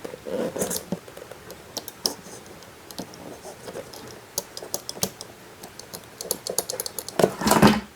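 A series of small, irregular clicks and taps, with a quick run of rapid clicks about halfway through.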